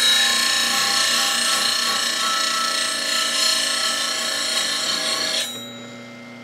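Steel spindle gouge being ground against the spinning CBN wheel of a bench grinder: a steady grinding hiss as a flat is ground along the side of the flute, which stops about five and a half seconds in when the tool comes off the wheel. The grinder's motor hum carries on underneath.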